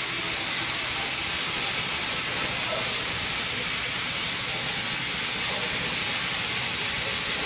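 Steady hiss of escaping steam from the class 01.10 steam locomotive 01 1066.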